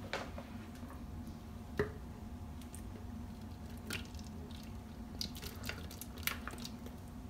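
Thick potato soup being ladled from a cast-iron pot into a plastic blender jar, with a few light clicks of the metal ladle against the pot and jar, the sharpest about two seconds in.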